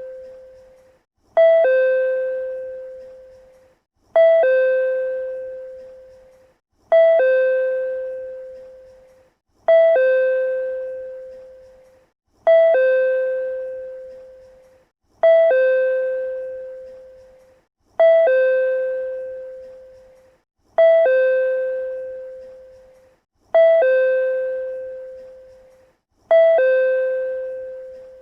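PRC-type chime sounding its two-note ding-dong over and over: a short higher note falls to a longer, slowly fading lower note. It repeats evenly about every three seconds.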